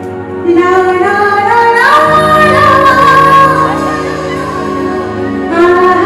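Live band music: electric guitars, bass and keyboards under a high melody line that slides smoothly between long held notes. It gets louder about half a second in.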